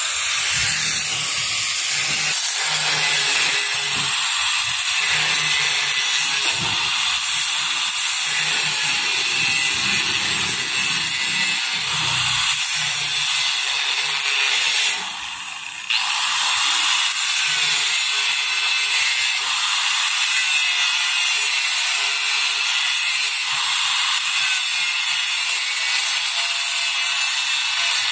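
Angle grinder with a cutting disc cutting through rusted steel truss members, a steady high grinding whine. It briefly drops off about halfway through, then resumes cutting.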